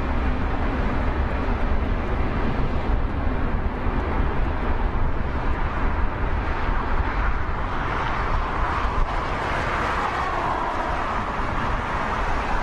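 Airbus A380's four turbofan engines at takeoff power as the jet climbs away, a steady deep rumble and roar that grows brighter in the midrange after about eight seconds.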